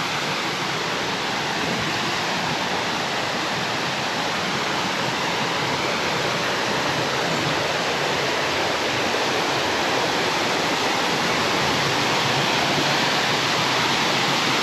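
Waterfall rushing: steady, loud falling water with a hiss, a little stronger near the end.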